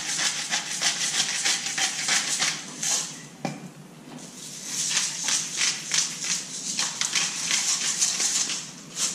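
Hand-twisted salt and pepper grinders crackling over a cast-iron camp oven, a fast gritty run of clicks. Near the middle the grinding stops and there is a single knock, then grinding starts again.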